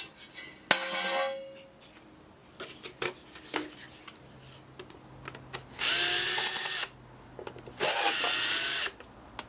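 Ryobi cordless drill-driver running in two bursts of about a second each, about six and eight seconds in, driving out the screws that hold an engine control module's circuit board. Under a second in, a sharp metallic clank with a short ring as the aluminium case lid is set down on the steel bench, followed by light handling clicks.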